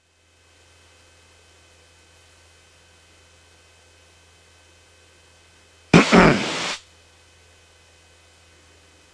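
Faint steady electrical hum of an aircraft headset and radio audio feed, with the engine barely present. About six seconds in comes a short loud burst of voice over the radio, lasting under a second.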